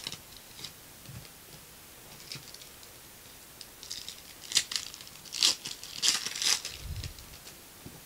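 Foil trading-card pack wrapper crinkling and tearing as the cards are worked out of it by hand, in short bursts of crackle that are loudest a little past the middle.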